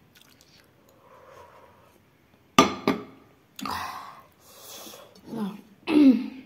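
A woman coughing several times and clearing her throat, with breathy, strained sounds. It starts abruptly about two and a half seconds in, after a quiet stretch.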